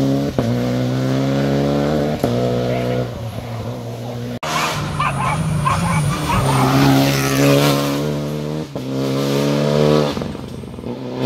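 Rally cars accelerating hard up a tarmac stage, engines revving up through the gears with a brief dip at each upshift. About four seconds in, the sound breaks off sharply and another car is heard with more tyre and road noise before its engine climbs through the gears again.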